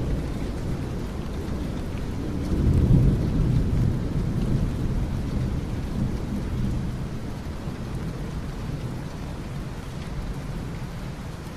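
Rainfall with a low rolling rumble of thunder that swells about three seconds in and then slowly dies away.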